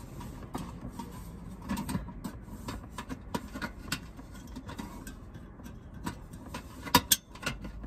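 Scattered light clicks and knocks from a portable gas stove being handled, its knob and canister worked, with a sharper cluster of clicks near the end. The stove's fuel canister is feared to have run empty.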